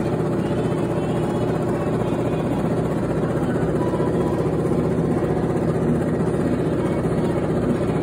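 Black+Decker BPWH84W portable washing machine running, its tub spinning: a steady mechanical hum.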